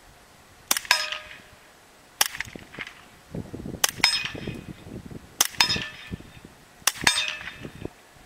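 Suppressed .22 pistol firing five single shots, about one and a half seconds apart. Each shot is followed a fraction of a second later by a second sharp crack with a brief ringing tail.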